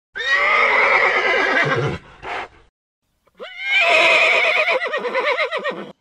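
Horse whinnying twice: two long neighs of about two seconds each, with a wavering pitch, the second starting a little over three seconds in.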